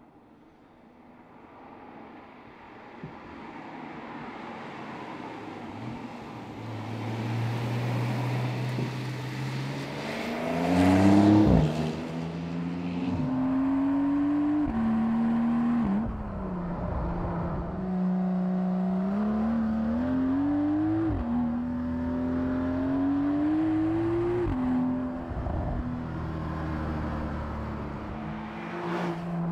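Porsche 911 Carrera 4S (992) twin-turbo flat-six: the car approaches and sweeps past about ten seconds in with a falling pitch. It then accelerates hard, the engine note climbing and dropping sharply at each of several quick upshifts.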